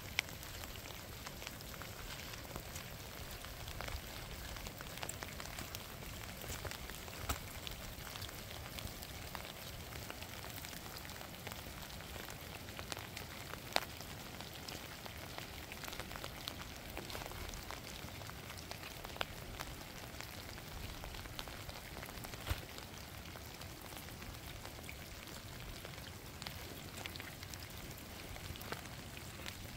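Steady rain falling: an even hiss with scattered sharper drop impacts.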